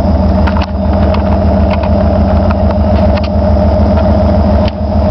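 1991 Dodge Power Ram 150's 318 V8 idling steadily in neutral, heard from inside the cab, with a few light clicks over the engine.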